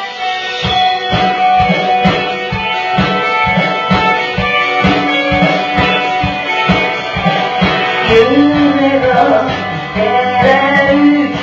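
Pop-rock song with guitar over a steady drum beat; a voice starts singing about eight seconds in.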